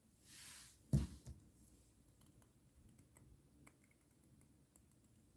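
Faint handling noise: a soft hiss, then a single thump about a second in, followed by scattered faint clicks.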